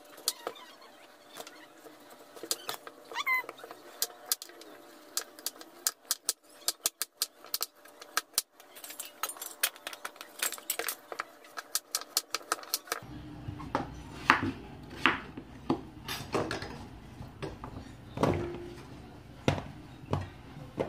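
Metal spoon clicking and scraping against green papaya flesh and the rim of a stainless steel bowl as the seeds are scooped out, in a quick run of sharp clicks. About 13 seconds in, after a cut, a kitchen knife knocks louder and more spaced out on a wooden cutting board as the papaya is sliced.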